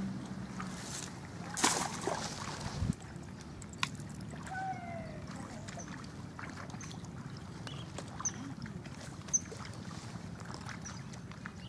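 A long fishing pole being handled at the water's edge, with a brief swishing rustle about two seconds in and a couple of light knocks soon after. Under it runs a faint steady low hum, and short high chirps come every so often in the second half.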